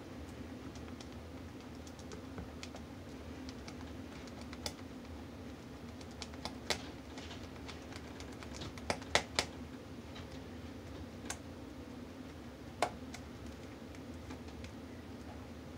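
A utensil stirring thick hot process soap batter in a plastic mixing bowl: scattered light clicks and taps against the bowl, with a quick cluster of sharper clicks about nine seconds in. A steady low hum runs underneath.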